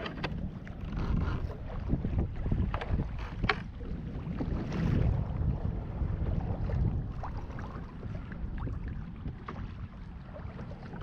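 Wind buffeting the microphone on a kayak at sea, a steady low rumble, with a few scattered sharp knocks.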